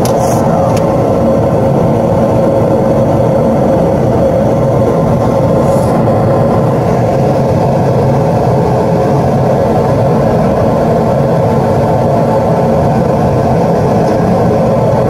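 Gas-fired unit heater running, its burner and belt-driven blower making a loud, steady drone with a constant hum.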